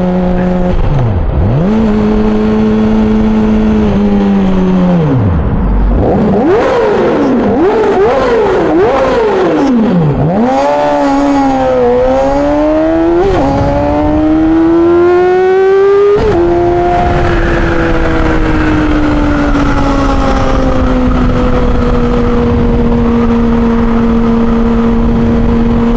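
2009 Yamaha R6's 600 cc inline-four through a full Yoshimura exhaust, in a tunnel. The engine is blipped up and down several times in quick succession, then pulls hard up through the gears, its pitch rising with a sudden drop at each upshift. It then settles into a steady cruise that slowly eases off.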